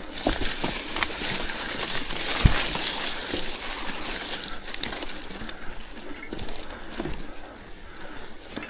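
Orbea Rallon mountain bike ridden over a rough trail: steady tyre noise on dirt with frequent rattles and clicks, and one hard knock about two and a half seconds in.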